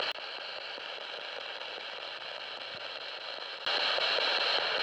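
Radio static hissing from a ghost-hunting spirit box sweeping through stations, the hiss stepping up louder about three and a half seconds in.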